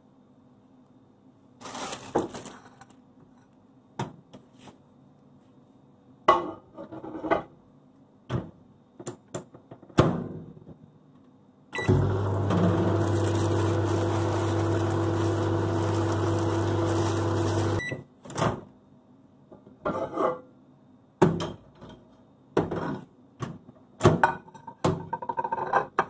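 A kitchen appliance runs with a steady electrical hum for about six seconds, starting and stopping abruptly. Before and after it come short knocks and rustles of a plastic bread bag and a plate being handled.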